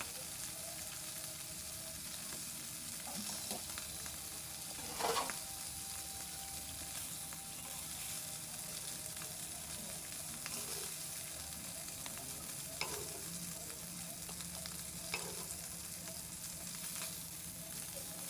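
Hilsa fish pieces sizzling steadily in hot oil in a karahi, done frying and being lifted out. A metal slotted spatula clinks against the pan a few times, loudest about five seconds in.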